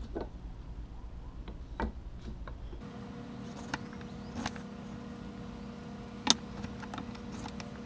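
Light clicks and taps of hand tools and wood being handled on a workbench while a marking gauge is set against a board, with a sharp knock a little after six seconds. A steady low hum sits underneath from about three seconds in.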